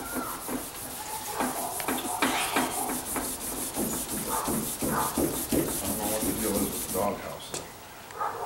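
Hand sanding: an abrasive pad rubbed back and forth against the steel underside of a car's trunk lid to scuff it for paint, in short scraping strokes about two a second. A steady high hiss runs underneath and stops about seven seconds in.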